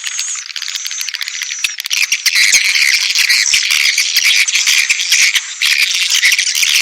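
Swiftlet lure call: a dense, continuous chatter of rapid chirps and twittering clicks, the calling sound played to attract swiftlets to a nesting house. It grows louder and busier about two seconds in.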